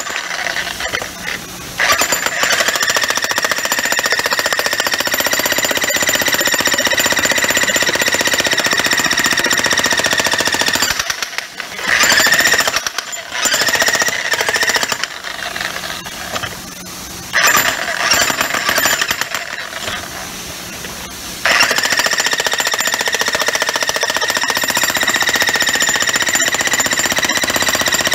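Harbor Freight Hercules 15-amp electric breaker hammer running, rapid blows with a steady high whine. It runs steadily, is stopped and restarted several times in the middle, then runs steadily again for the last part.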